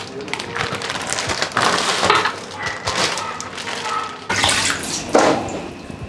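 Wet, raw pig trotters being tipped out of a plastic bag and handled on a stainless-steel tray: irregular wet sloshing and splashing, with louder surges about a second and a half in and again after about four seconds.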